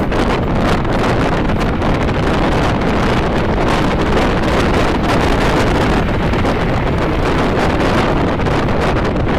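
Wind rushing and buffeting over the microphone of a car moving at highway speed, with the rumble of the road and traffic beneath. The noise is loud and steady, flickering in short gusts.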